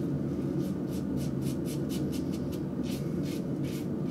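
RazoRock German 37 Slant safety razor with a Rapira blade scraping through lathered beard stubble in short, quick strokes, about four a second, over a steady low hum.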